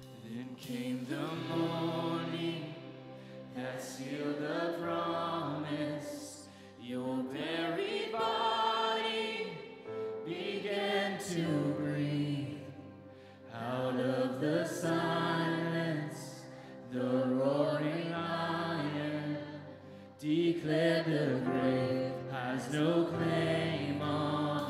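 Worship band playing and singing: sung phrases with short breaks between them, over acoustic guitar and keyboard holding steady low notes.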